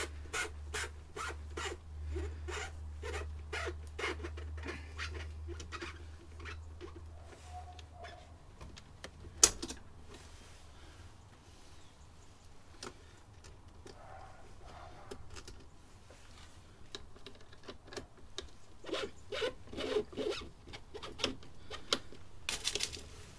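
Clicking and rubbing of a hand driver undoing T25 Torx screws from a motorcycle's plastic lower fairing, in quick runs of clicks with a sharper knock about nine and a half seconds in.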